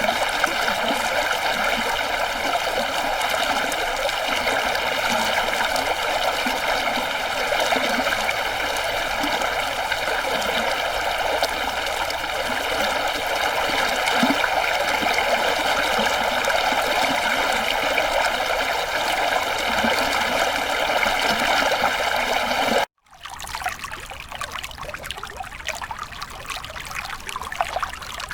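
Stream water flowing steadily. About 23 seconds in, the sound cuts out for an instant and comes back quieter and thinner.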